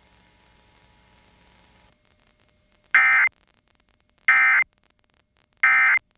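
Emergency Alert System end-of-message (EOM) data bursts: three short, identical, buzzy digital tone bursts about 1.3 s apart, marking the end of the required monthly test. A faint steady hum comes before them.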